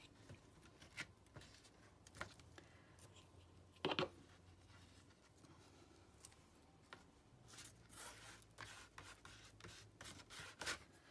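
Faint handling of paper scraps: soft rustling and scraping with scattered small clicks, the sharpest about four seconds in, and a run of rustling near the end.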